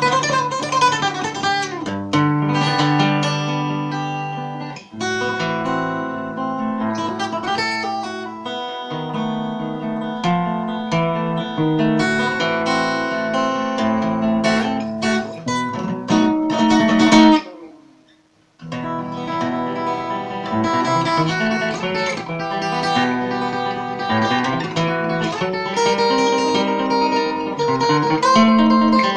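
Solo acoustic guitar playing a flamenco-style piece, with quick runs of single notes and chords. About two-thirds of the way through, a loud chord rings out and dies away, and there is about a second of silence before the playing starts again.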